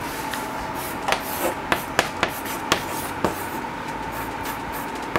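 Chalk on a chalkboard: a stick of chalk scratching and tapping in short strokes as a word is written by hand, with a sharp tick each time the chalk strikes the board.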